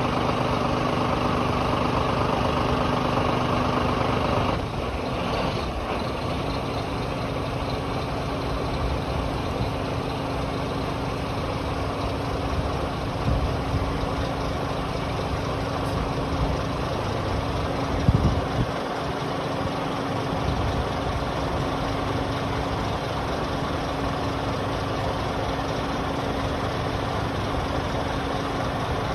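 Scania R440 truck's 13-litre straight-six diesel engine running steadily, powering the hydraulic Hiab crane as its boom unfolds. The steady tone changes and drops slightly in level about four and a half seconds in, and there is a short louder low burst around eighteen seconds.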